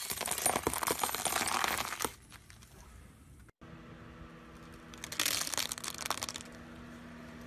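Car tyre rolling over a light bulb, the glass crunching and crackling for about two seconds. After a cut, a tyre crushes a pile of colourful plastic items with a shorter crackling crunch over a low steady hum.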